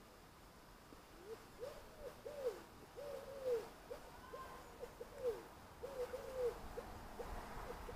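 A pigeon cooing in phrases of short, soft rising-and-falling notes, starting about a second in.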